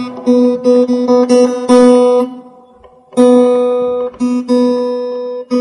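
Acoustic guitar: one note plucked over and over in quick repeats, a short pause, then the same note struck and left ringing, struck again a couple of times near the end.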